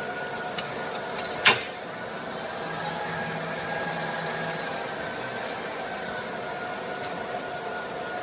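Handheld laser welding machine running with a steady hum. There are a few light clicks and one sharp click about a second and a half in.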